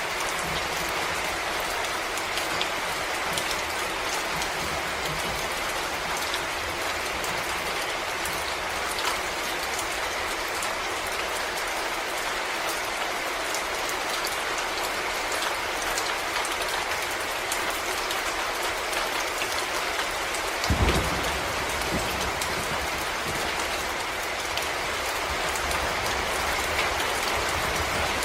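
Steady rain falling on forest leaves, an even hiss with scattered drop ticks. A single dull thump sounds about three quarters of the way through.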